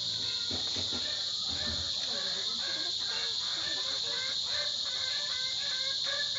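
A steady, high-pitched insect chorus drones without a break, with faint short repeated calls underneath.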